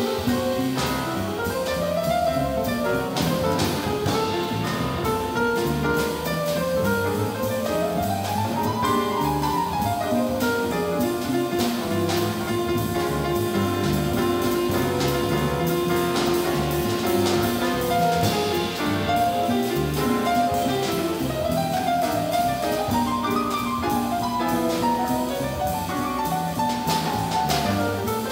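Live jazz from a grand piano, double bass and drum kit, with the piano playing quick melodic runs up and down the keyboard over a walking rhythm section.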